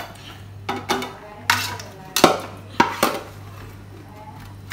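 A metal perforated spoon knocking and scraping against a cooking pot and a steel mixer-grinder jar as cooked tomatoes are scooped from one to the other: about half a dozen sharp clinks, the loudest a little past two seconds in.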